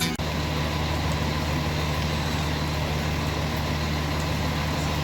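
A motor vehicle engine idling, a steady low hum that does not change. It begins abruptly just after the start.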